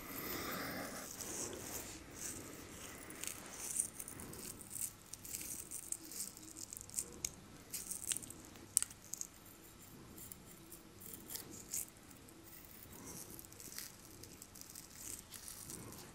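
Close-miked long acrylic fingernails scratching and picking at a man's bearded face, making irregular soft crackles and clicks over a faint rustle.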